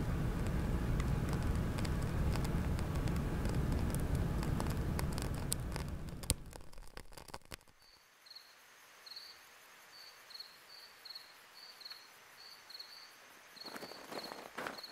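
Burning paper fire, with a low roar and scattered crackles that fade out about seven seconds in. Then crickets chirping in a quiet night, and footsteps starting near the end.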